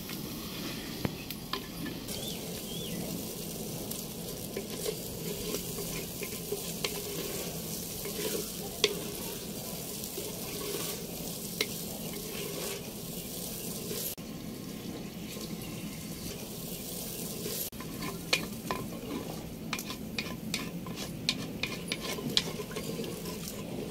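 A ladle stirring and scraping through rice in a clay pot over a wood fire, over a steady sizzle of the food cooking. Sharp clicks of the ladle against the pot come more often near the end.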